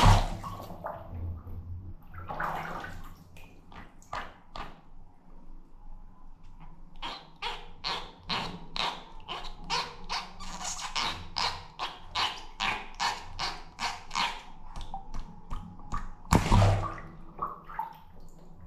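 Water sound effects: a loud balloon pop at the start and another about sixteen seconds in, with a quick run of splashes and drips in between.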